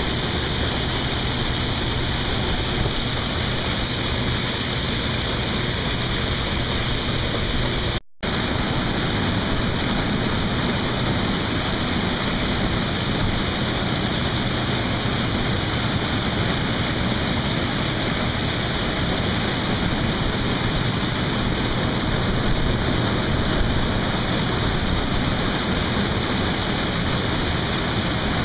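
Harvest machinery running steadily, a dense even noise with no changes in pitch. It cuts out for an instant about eight seconds in.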